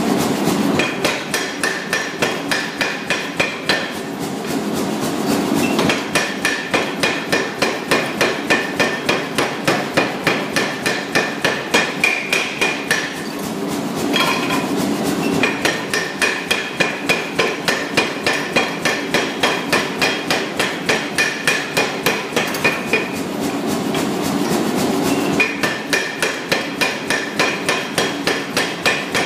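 Hammer blows forging a 60 mm round steel bar, struck steadily at about three a second, each with a metallic ring. A few times the ring briefly drops out while the rhythm carries on.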